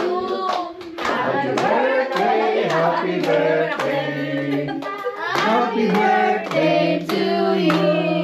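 A group of people singing together, clapping along about twice a second.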